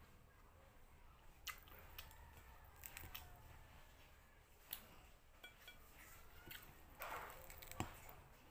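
Near silence with scattered faint clicks and taps of fingers and food against a plate while eating rice and fish by hand, and a short soft rustle near the end.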